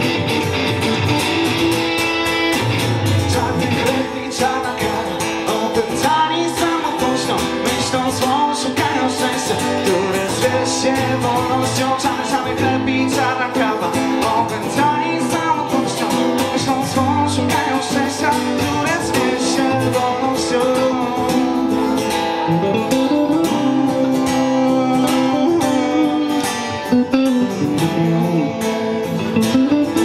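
Electric guitar and acoustic guitar playing together live in an instrumental passage of a song.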